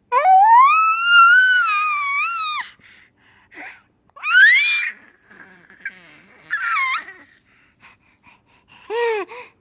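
A baby's high-pitched voice: one long squealing cry of about two and a half seconds, then three short rising wails spread through the rest with quiet gaps between.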